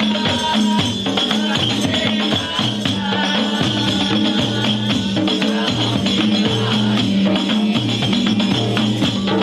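Music with fast, dense percussion over steady held low notes.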